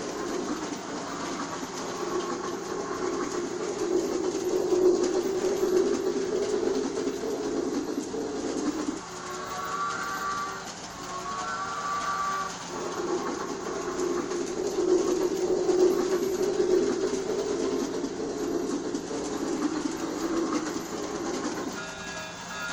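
G scale toy steam train running around its track: a steady motor-and-wheel rumble that swells and fades as it goes. About ten seconds in, the rumble dips and two short whistle toots sound back to back.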